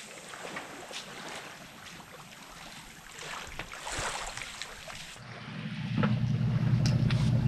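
Wind and surf noise with gentle gusts, then, about five seconds in, a steady, louder low motor drone with an even pulse sets in and holds.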